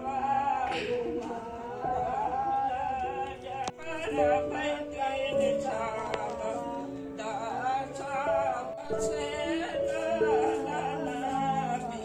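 A song: a singing voice carrying a wavering melody over steady held instrumental notes.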